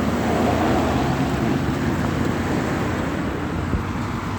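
A vehicle passing on a wet road, its engine hum under the hiss of tyres through water, swelling in the first second or so and easing away, with wind on the microphone.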